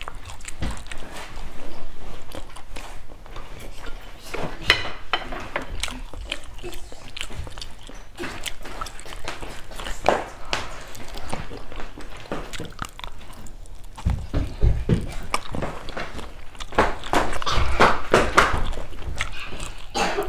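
Close-miked eating sounds of fried chicken wings: biting, chewing and wet mouth clicks and smacks as meat is pulled off the bone.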